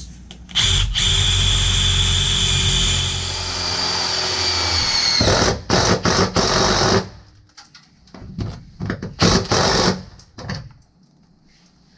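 Power drill with a metal core bit (hole saw) boring a starting hole through a sheet-metal HVAC plenum. It runs steadily with a high whine for about four seconds, then drills in short stop-start bursts.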